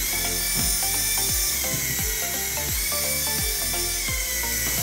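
Background music with a steady beat, over the high, steady whine of a toy helicopter's small electric motor and rotors, which dips slightly in pitch near the end.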